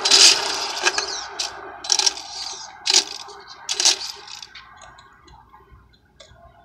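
Electric RC touring car driven in short throttle bursts on asphalt: a string of brief, sharp whirring bursts, about one a second, fading over the last couple of seconds.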